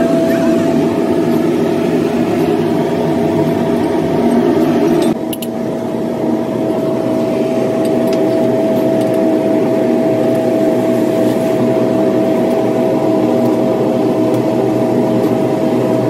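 Steady drone of workshop machinery with a constant high whine running through it; the lower rumble drops abruptly about five seconds in while the whine carries on.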